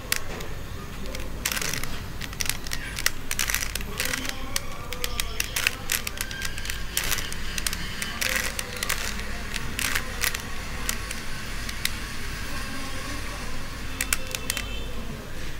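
Plastic 3x3 Rubik's cube being turned by hand: irregular clicks and rattles as its layers snap round, several turns in quick succession.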